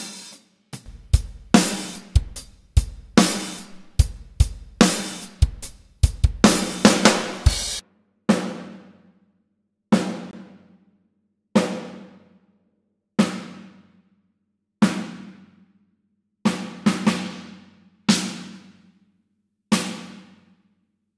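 Superior Drummer 3 sampled acoustic drum kit playing a groove with kick, snare, hi-hat and cymbals, which stops about eight seconds in. After that a single drum is struck on its own about every one and a half seconds, each hit ringing out.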